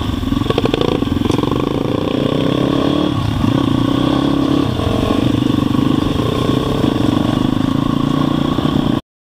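Dirt bike engines running under way on a dirt track, their pitch rising and falling several times with throttle and gear changes. The sound cuts off suddenly near the end.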